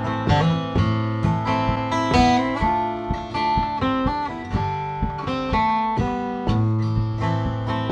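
Instrumental break of a slow Irish folk song on acoustic guitars and a mandolin-family instrument: plucked melody notes ringing out over strummed chords, with no singing.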